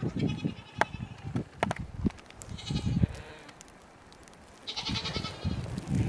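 Domestic goats bleating: three high, wavering calls a couple of seconds apart, with a few sharp clicks in between.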